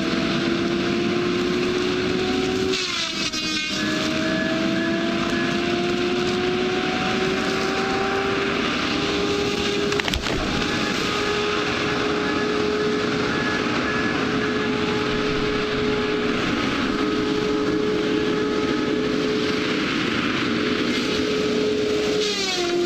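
Engine running steadily at high revs, its pitch slowly climbing, with a brief dip about three seconds in and another near the end.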